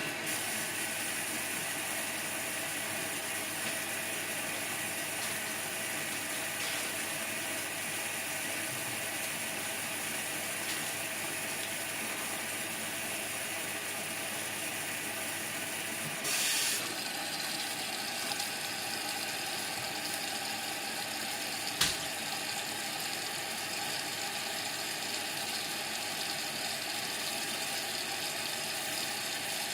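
Indesit MTWC71252WUK washing machine running early in a Cotton 30 wash cycle, a steady mechanical running noise. A brief louder rush comes about 16 seconds in and a single sharp click about 22 seconds in.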